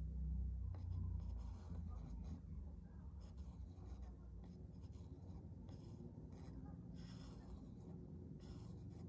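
Faint scraping and rubbing of a plastic stick swirled through wet acrylic pour paint against the board, with a couple of sharper scratches near the end, over a low steady hum.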